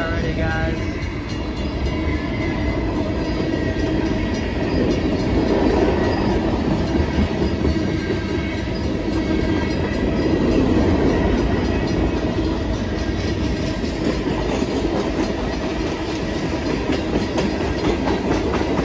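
Freight train cars, tank cars and covered hoppers, rolling steadily past: a continuous noise of steel wheels running on the rails.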